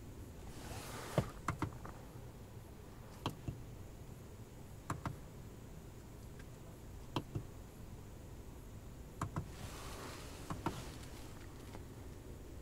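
Soft clicks, mostly in quick pairs every couple of seconds, with two brief rustles over a low steady hum inside a car's cabin.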